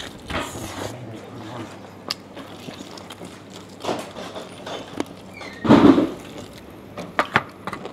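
A person biting into and chewing naan-pit-roasted lamb leg close to a clip-on microphone: meat being torn off with the teeth and chewed, with scattered small clicks. A louder, muffled sound comes about six seconds in.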